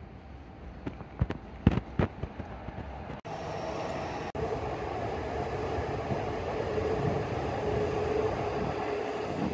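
A few sharp clicks about one to two seconds in. From about three seconds comes the steady rumble and hum of a train running by, growing a little louder.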